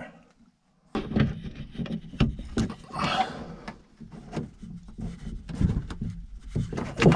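Irregular clicks, knocks and rubbing of hands and tools on plastic and metal parts inside a BMW car door as the door lock actuator is worked loose, starting about a second in.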